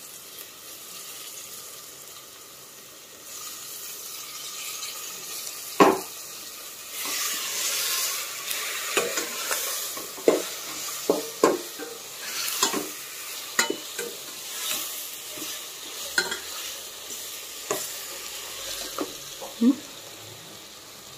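Sliced onions sizzling in hot oil in a stainless steel pot, the sizzle growing louder a few seconds in. A metal spoon stirs them, clinking sharply against the pot many times.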